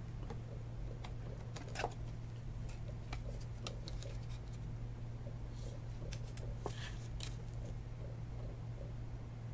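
Light clicks and rustles of a trading card being handled and slid into clear plastic card holders, over a steady low electrical hum.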